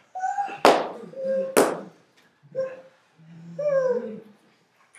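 Young men's voices crying out in short yelps that rise and fall in pitch, with two sharp noisy bursts about half a second and a second and a half in.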